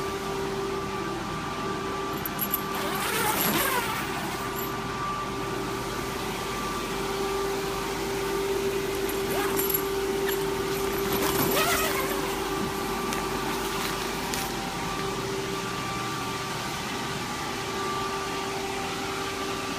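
Electric inflation blower running steadily, a constant whirring hum with air rushing, keeping the inflatable enclosure up. Brief higher-pitched sounds rise over it about three and eleven seconds in.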